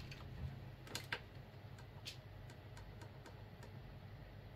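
Faint steady hum of a powered-up desktop computer's fans running, with scattered light clicks at uneven spacing.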